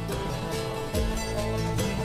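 Background music: a documentary score of sustained notes, with a deep bass hit about a second in.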